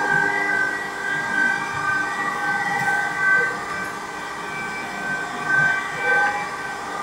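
CNC vertical machining centre running, a steady whine with overtones that swells and fades over a rough low rumble.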